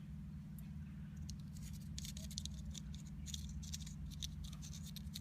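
Small metal parts of a cut-open combination padlock clicking and rattling as they are handled, a run of quick light clicks starting about a second in, over a steady low hum.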